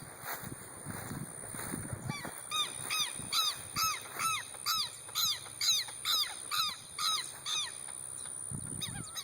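A bird calling: a rapid series of about a dozen harsh, arched notes, roughly three a second. It starts a couple of seconds in and stops shortly before the end.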